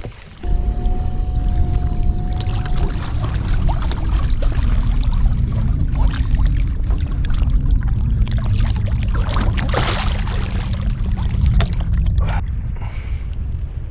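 Water splashing and sloshing beside an inflatable boat as a hooked wels catfish thrashes at the surface while being landed by hand, over a heavy low rumble. A thin steady whine is heard for the first few seconds.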